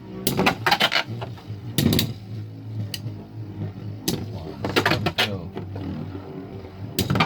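Two Beyblade spinning tops battling in a stadium, colliding in clusters of sharp clacks at irregular moments over a steady low whir.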